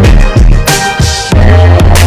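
Loud background music with drum hits and a heavy, sustained bass line that comes in about two-thirds of the way through.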